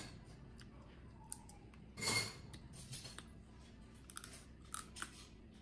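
Eating sounds from boiled crab being picked apart by hand and chewed: soft crunching and small clicks, with one short, louder noise about two seconds in.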